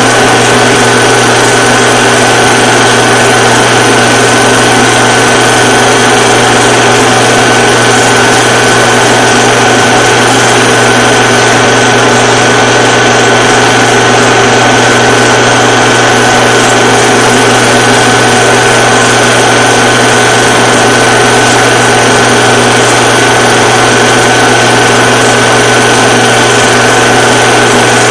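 Film projector running: a loud, unchanging motor whir with a low hum and a thin steady high tone.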